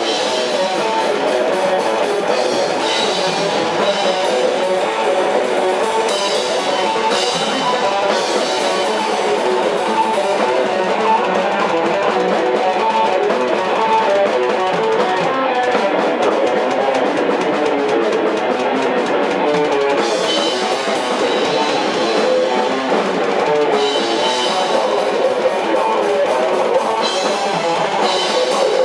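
Rock music with guitar and a drum kit, playing steadily throughout.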